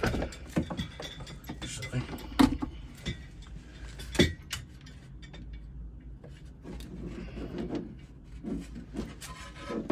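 Small objects and tools being handled and set down: scattered clinks and knocks, with two sharp knocks about two and a half and four seconds in, over a low steady hum.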